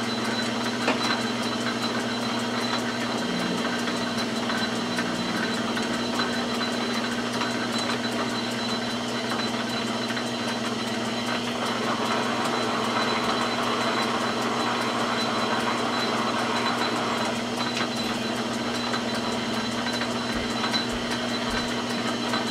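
Metal lathe running with a steady hum while its tool takes a single-point threading pass on a rifle barrel's muzzle.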